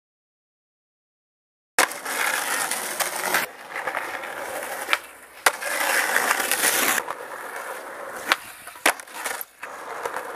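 Dead silence for about the first two seconds, then skateboard wheels rolling over rough asphalt. Several sharp clacks of the board's tail and wheels striking the road break up the rolling.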